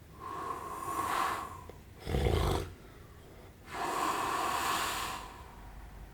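A sleeping man snoring. First comes a long airy breath, then a short, loud, low snort about two seconds in, then another long airy breath.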